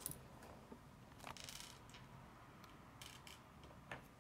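Faint clicks and a rustle of plastic K'nex pieces being handled, as a green connector is pushed onto a red rod. There is a short rustle about a second and a half in, and a few small clicks around three seconds in and again just before the end.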